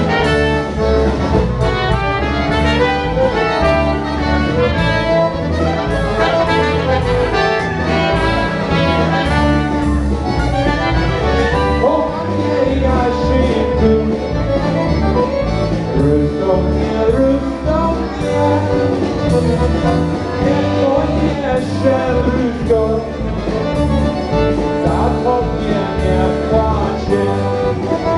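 Live polka band playing a honky-style polka, with horns carrying the tune over a steady beat.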